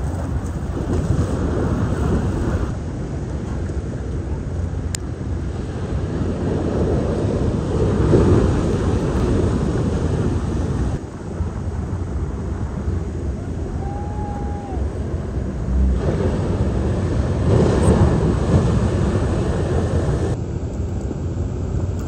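Wind buffeting the microphone over the rush of open ocean and breaking surf, a heavy rumbling noise that swells and changes abruptly at several points.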